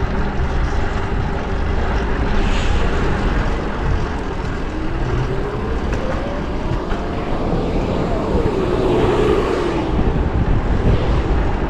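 Wind rushing over the microphone and road noise while riding a fixed-gear bike. Midway, a motor vehicle goes by, its pitch climbing for a few seconds and then falling away.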